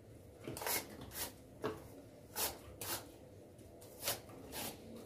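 Hand-held vegetable peeler scraping the skin off an apple in short strokes, roughly one every half second.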